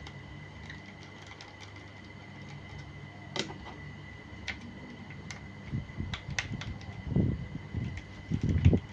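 Scattered small clicks and taps of plastic and metal as the old hard disk is worked loose from a laptop. Duller knocks come near the end, over a steady faint fan hum and a thin high whine.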